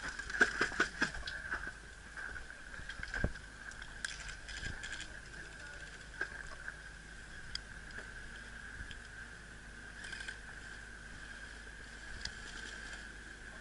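Footsteps on a gravel path with scattered light clicks and knocks of carried gear, over a steady faint high whine; a quick cluster of sharp clicks comes in the first second.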